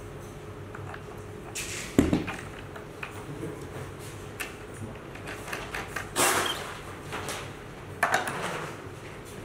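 Knocks and clatter of an electric skateboard's hub motor and metal truck parts being handled and fitted together, with louder bumps about two, six and eight seconds in, over a steady low hum.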